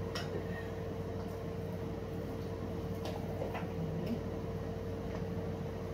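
Steady low room hum, with a few faint light clicks.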